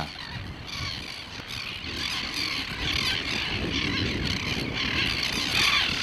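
Many seabirds calling at once in a breeding colony, a steady massed din of courtship calls at the height of the breeding season, over a low rumble.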